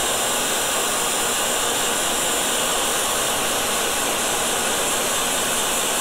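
Electric heat gun blowing steadily, a constant even hiss of hot air, shrinking heat-shrink sleeving onto a battery bus bar.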